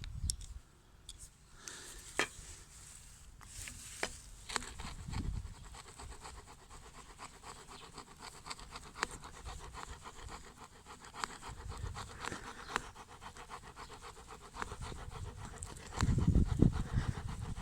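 Small folding saw blade of a Gerber MP600 Pro Scout multi-tool rasping back and forth through PVC pipe in quick strokes; the blade cuts the plastic poorly, its teeth clogged with wood. A louder low rumble comes in near the end.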